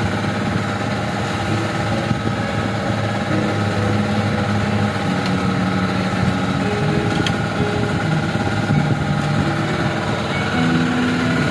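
Small engine running steadily on an outrigger fishing boat, a constant drone whose pitch shifts slightly a few times.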